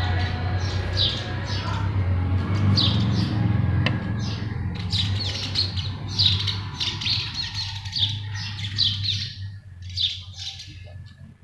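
Several perched birds calling close by: rapid, harsh, high squawks, many short calls in quick succession, busiest in the second half.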